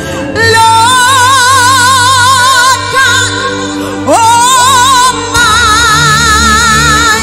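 Worship music: a woman's voice holds three long, high notes with a wide vibrato, sliding up into the second one, over a steady keyboard and bass accompaniment.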